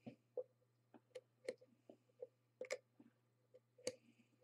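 Faint, irregular small clicks and scrapes of a small screwdriver tip against a rebuildable tank atomizer's coil and deck while cotton wick is tucked under the coil.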